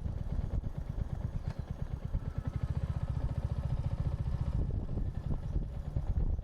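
Royal Enfield Hunter 350's single-cylinder engine running with a quick, even beat, picked up through an action camera's microphone that is buffeted by wind.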